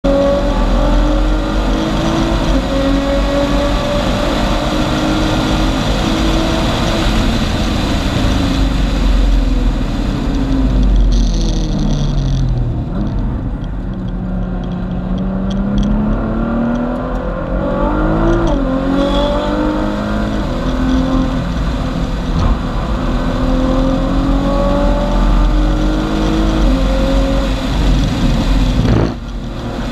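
A tuned 2014 Nissan GT-R's twin-turbo 3.8-litre V6, converted to E85 and fitted with a 4-inch cat-back exhaust, heard from inside the cabin at full track pace. Its pitch climbs again and again through the gears, falls away under braking about halfway through, then climbs once more, over steady wind and tyre noise. The level drops briefly and sharply near the end.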